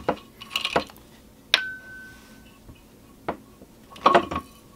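Metal clinks and taps of an aluminium soft-plastic bait mold and its pins being handled. One sharp clink about one and a half seconds in rings on as a clear tone for about a second.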